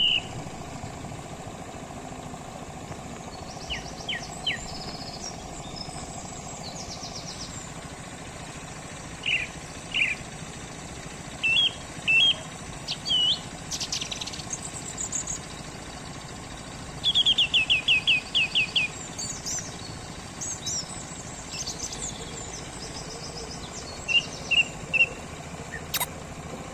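Several birds chirping and calling at intervals, including one quick run of about eight notes near the middle, over a steady low hum. A single sharp click near the end.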